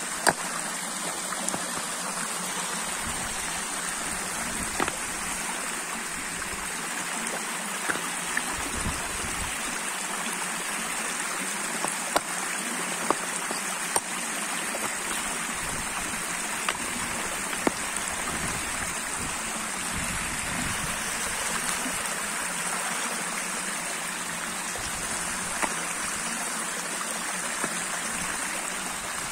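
Shallow rain-fed winter stream running over limestone rocks and pebbles: a steady babble of flowing water, with a few sharp ticks scattered through it.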